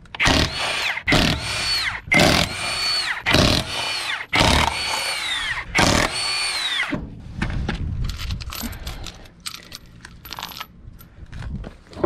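Milwaukee M12 Stubby cordless impact wrench spinning lug nuts off a wheel: six short runs about a second apart, each whine falling away as the trigger is let go. After that come light metallic clicks as the loose lug nuts are handled.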